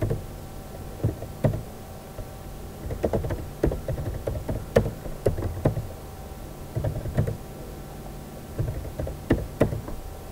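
Computer keyboard keys being pressed: irregular clicks and taps, some single and some in quick runs of several, over a steady background hum.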